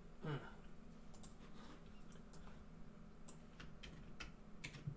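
Faint, irregular clicking from a computer keyboard and mouse, about eight scattered clicks, with a brief low vocal sound about a third of a second in.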